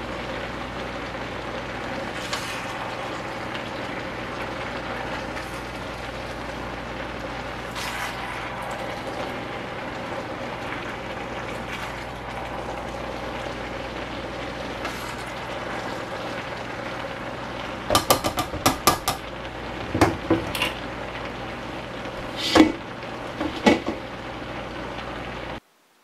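Chicken sausage and vegetables sizzling in a wok with a steady frying hiss as they are stirred. About two-thirds of the way through, the spatula and tongs clack against the wok in a quick run of sharp knocks, then a few single clacks. The sound cuts off suddenly just before the end.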